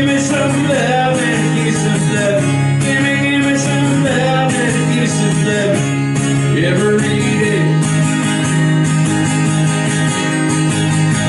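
A man singing live while strumming an acoustic guitar.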